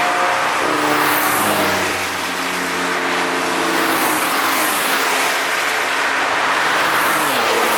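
Car engines at speed passing by on a racetrack, the engine notes holding and then falling in pitch as the cars go past, over steady tyre and road noise.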